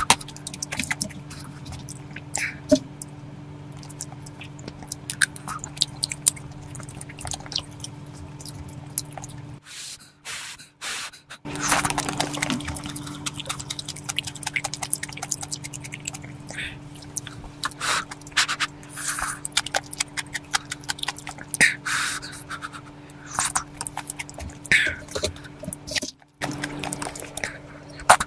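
Close-miked eating sounds of octopus kimchi rice porridge: wet mouth clicks, small slurps and scrapes in quick irregular succession, breaking off briefly twice.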